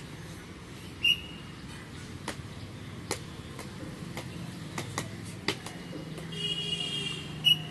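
A drill whistle gives two short, sharp blasts, about a second in and again near the end, with a longer whistled tone just before the second. Between them come the scattered, sharp footfalls of cadets marching on paving.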